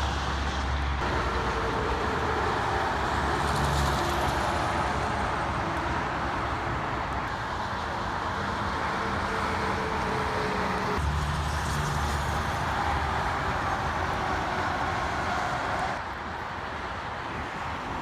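Highway traffic with heavy diesel trucks passing over steady tyre and road noise. A low engine drone stands out in the first few seconds and again about eleven seconds in. The sound changes abruptly a second in, about eleven seconds in and near the end, where it turns quieter.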